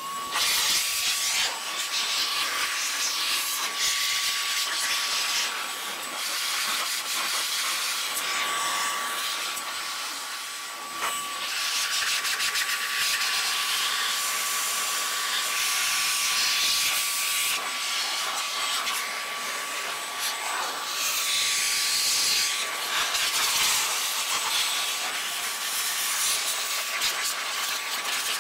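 McKee's 37 Mini Car Dryer, a hose-fed blower, running and blasting air to blow water out of an engine bay: a rush of air with a steady high whine that sweeps up as the motor spins up at the start, the rush rising and falling as the nozzle moves.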